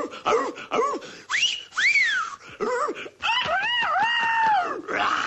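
Tasmanian Devil cartoon character vocalizing in gibberish: a run of short grunting syllables, then a rising-and-falling squeal about two seconds in, and a long wavering cry near the end.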